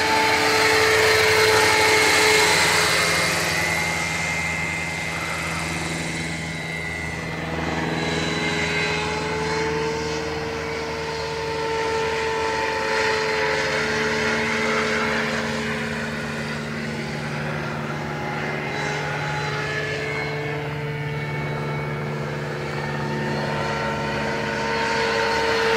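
Electric RC scale helicopter, a 600-size Roban HH-60 Jayhawk with a Scorpion motor, in flight: a steady whine from the motor and drivetrain over the whir of the rotor blades. The pitch wavers slightly, and the level eases and swells gently as it manoeuvres.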